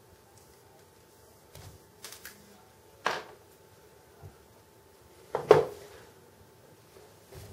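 Scattered clicks and taps of small diecast model parts, pins and a hand tool being handled and set down on a workbench, with the loudest knock about five and a half seconds in.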